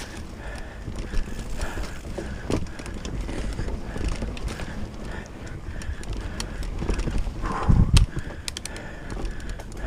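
Mountain bike riding down a rough trail: a steady rumble of tyres on dirt with a constant clatter of rattles and knocks from the bike over roots and rocks, and one heavier thump about three-quarters of the way through.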